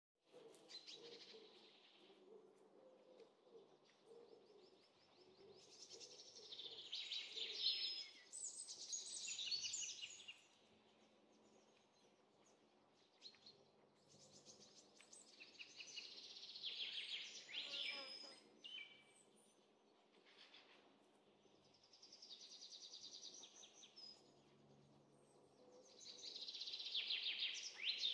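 Songbirds singing in bursts of rapid, high trills and chirps every few seconds, with quiet gaps between.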